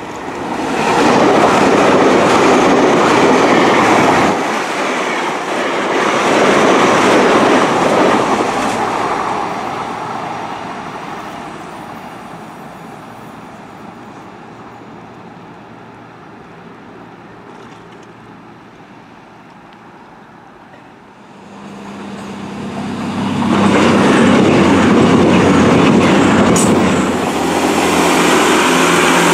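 Two trains passing at speed. A GWR Intercity Express Train rushes by with wheels clattering on the rails, then fades away. About twenty seconds in, a diesel multiple unit passes close by, its engines holding a steady low note under the rail noise.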